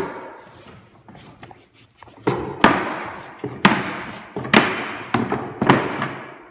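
Wooden spacers and spindles being knocked into place by hand in the rebate of a pine base rail: about seven sharp wooden knocks at uneven intervals, each dying away quickly.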